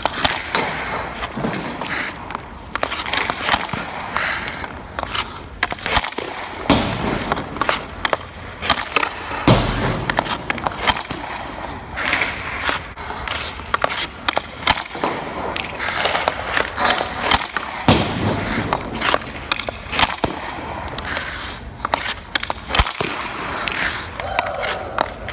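Ice hockey practice on the rink surface: a stick blade repeatedly clacks against pucks, and skate blades scrape the ice. There are two heavier thuds of pucks striking, about a third and two-thirds of the way through.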